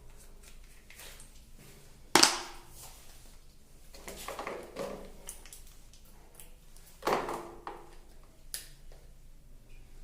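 Skincare product containers being handled close to the microphone: two sharp knocks or cap clicks, about two seconds in and about seven seconds in, with softer rustling between and a small click near the end.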